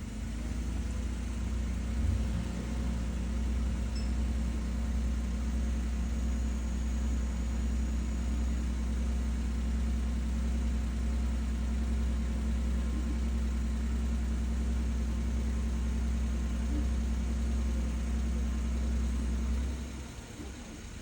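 A car engine idling close by with a steady low hum, which cuts off abruptly near the end as the engine is switched off.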